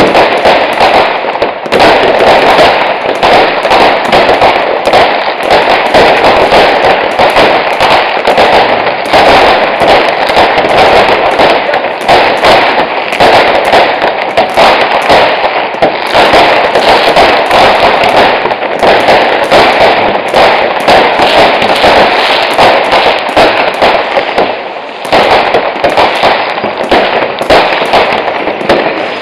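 Continuous barrage of fireworks and firecrackers: countless overlapping bangs and crackles, loud throughout, easing briefly about 25 seconds in.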